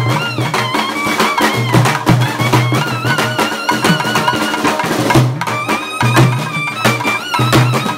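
A small brass-band-style ensemble plays a fast, ornamented folk tune. A clarinet carries the sliding, wavering melody over a busy beat from a snare drum, a bass drum and a rope-tensioned barrel drum, with the bass drum thumping in short repeated runs.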